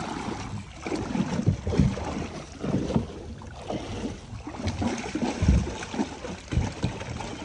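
Shallow, muddy creek water sloshing and splashing, with irregular low thumps.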